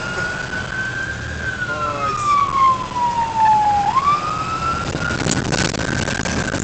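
Ambulance's electronic siren on the wail setting, heard from inside the cab during a code 3 run. One slow cycle: the pitch rises, slides down over a couple of seconds, then sweeps back up. The engine and road rumble underneath, and a short burst of rough noise comes about five seconds in.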